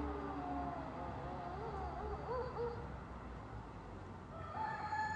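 Rooster crowing: drawn-out calls that waver in pitch, over a low steady rumble, with a new long held crow starting near the end.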